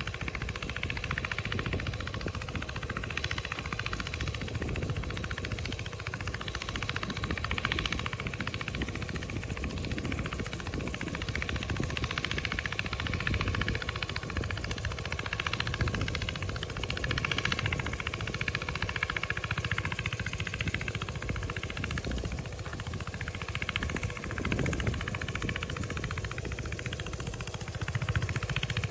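An engine running steadily at a constant speed, with a rushing noise over it.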